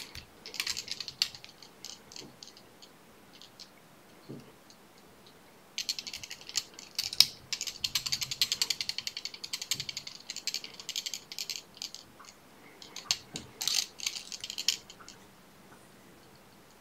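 Fast, dry clicking and ticking from fly-tying tools worked at the vise while a salmon fly is tied: a short spell about half a second in, a dense run from about six to twelve seconds in, and another near the end.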